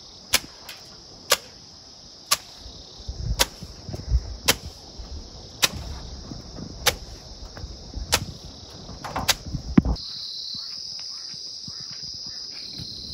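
A wet bundle of grass stalks dashed against a mud house wall about once a second, each stroke a sharp slap as it spatters clay slurry onto the wall, over a steady high chirring of insects. About ten seconds in the slaps stop and only the insect chirr remains.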